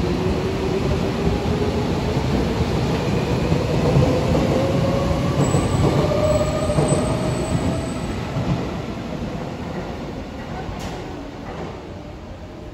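Tobu Railway commuter electric train pulling out of the station: running noise with a slowly rising motor whine as it gathers speed, fading away in the last few seconds as the train leaves.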